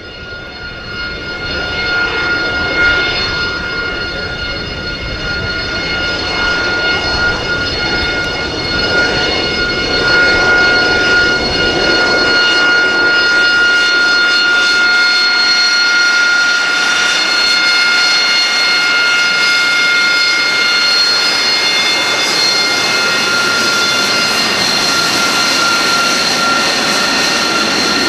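AV-8B Harrier II's Rolls-Royce Pegasus turbofan running: a rushing jet roar with a steady high turbine whine on top. It builds up over the first couple of seconds, then holds at a constant loud level.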